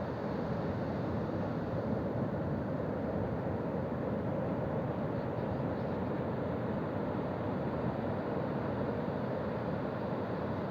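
Ocean surf rushing steadily on a beach, a dense even wash with no single breaking wave standing out.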